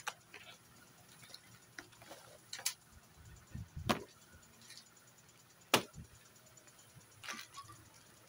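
Unboxing handling noise: scattered clicks, knocks and plastic crinkles as a bubble-wrapped lamp and a plastic bag of parts are lifted out of a cardboard box, with the sharpest knocks about four and six seconds in.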